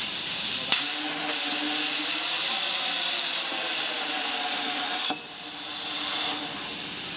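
CNC plasma cutter torch cutting a steel pipe. The arc strikes with a sharp crack about a second in, then cuts with a loud hiss and a wavering hum for about four seconds before cutting off suddenly. A steady hiss carries on underneath throughout.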